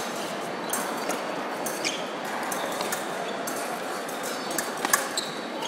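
Fencing blades clashing: scattered sharp metallic clinks, a few of them ringing briefly, the sharpest about five seconds in, over the steady murmur of a large hall full of people.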